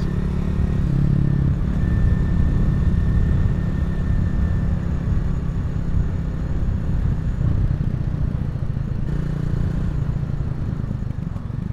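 Honda CRF250L's single-cylinder engine and exhaust running steadily while riding along a road, with a low rumble underneath. The engine note shifts slightly about a second in and again near the end.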